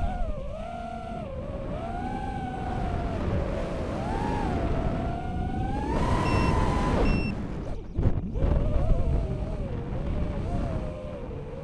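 Racing quadcopter's four brushless motors (Racerstar BR2306S 2700KV on three-blade 5045 props) whining, rising and falling in pitch with the throttle, over a rush of wind and prop wash on the onboard camera's microphone. The whine drops away briefly a little past seven seconds in as the throttle is chopped, then climbs back.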